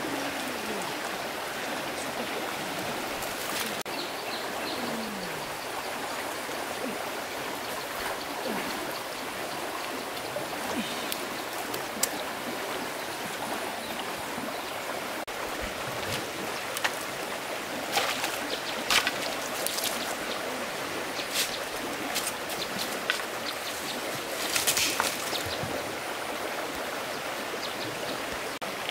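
Steady rushing of running water, with scattered short clicks and knocks.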